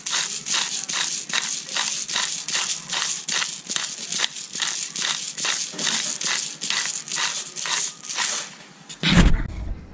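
Hand pepper mill grinding black peppercorns, a steady rhythmic crunching of about three twists a second. Near the end the grinding stops and there is one loud thump.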